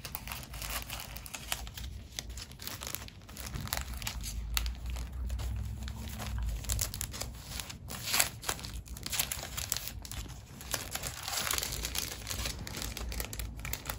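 Clear plastic bags crinkling as bagged cloth face masks are picked up and handled, an uneven run of crackles throughout.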